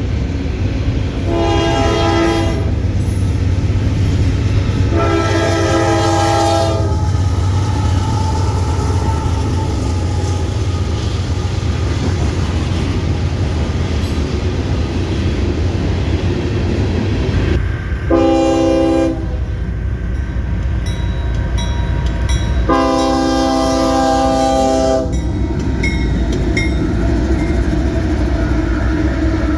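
Train horn sounding four blasts, the third one short, in the long-long-short-long pattern blown for a grade crossing. Under it runs a steady low rumble of the passing train.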